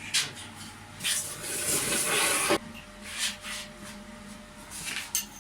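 Rough scraping or rasping on a workpiece, loudest for about a second and a half and then stopping abruptly, with a few shorter scrapes and knocks around it.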